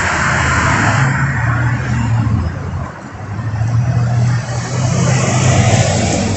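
City street traffic with cars driving past and a steady engine hum. The hum is loudest near the end as a school bus passes close by.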